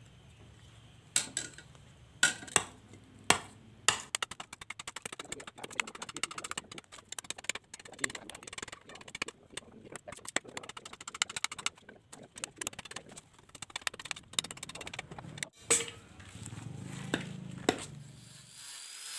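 Hand-tool strikes, most likely a hammer on the blade: a few separate sharp blows, then a quick run of lighter taps for about ten seconds, then a few more blows near the end.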